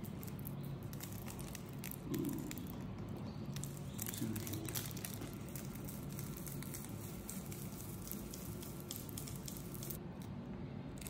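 Faint dry crinkling and small crackles as loose shed skin is peeled off a snake by hand, over a low steady room hum.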